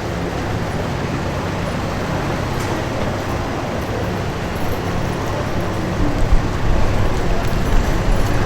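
Road traffic noise: motor vehicle engines and tyres running steadily, with a low rumble growing stronger about six seconds in.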